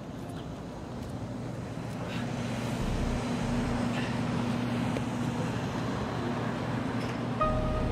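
Steady road traffic noise that grows louder about two seconds in, as if a vehicle is drawing near.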